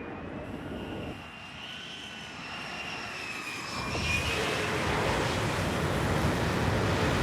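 F-35 Lightning II fighter's jet engine whining on final approach to the carrier deck, growing louder about four seconds in as the jet closes in.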